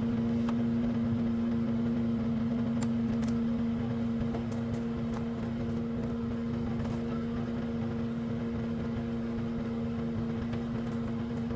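Cat 277D compact track loader running steadily, a constant droning hum with an unchanging pitch.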